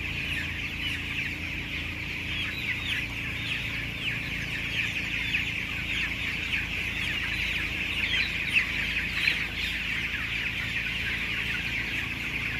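A large flock of 16-day-old broiler chickens peeping together in a dense, continuous chorus of short high falling calls, over a low steady hum.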